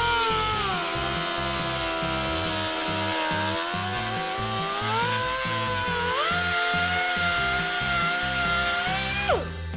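Small hand-held grinder with a cut-off disc spinning up and cutting into a plastic IDC connector, its motor whine dipping and climbing in pitch a couple of times before it spins down near the end. Background music plays underneath.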